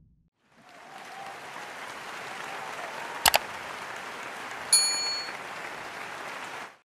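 Sound effects for a subscribe-button animation: a quick double mouse click about three seconds in, then a short bell notification ding just under five seconds in. Under them runs a steady applause-like noise.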